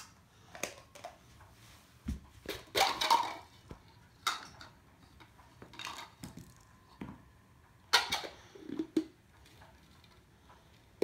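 Hollow plastic toy egg halves clicking and clacking as they are twisted apart, handled and knocked together, in scattered short knocks with pauses between.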